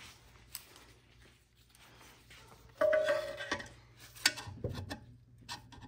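Steel transmission parts and a spring compressor tool being handled on a workbench: scattered metal clicks and clinks, with a short ringing tone about three seconds in.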